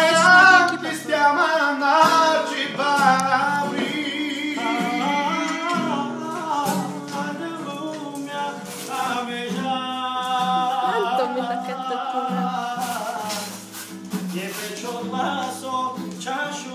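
A man singing live and accompanying himself on a strummed acoustic guitar. His voice bends and wavers through long melodic lines over steady guitar chords.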